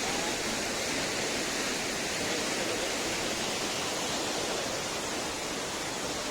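Waterfall pouring and splashing, a steady rushing hiss with no letup.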